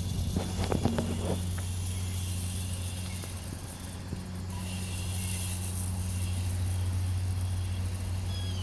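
A steady low engine hum, with a few sharp clicks about a second in.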